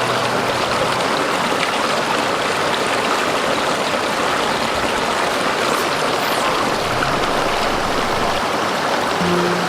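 Stream water rushing, a steady, even, loud wash of water noise.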